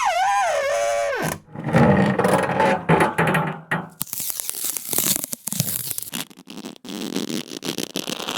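A run of friction squeaks and creaks. First a wavering squeal glides down in pitch, then comes a rough, pitched creak, and from about four seconds in a gritty scraping full of small clicks.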